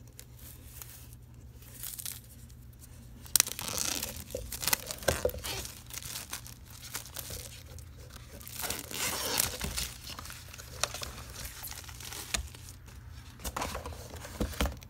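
Plastic shrink-wrap being torn and peeled off a boxed game screen: quiet for the first three seconds, then a sharp crack and irregular crinkling and tearing that goes on until just before the end.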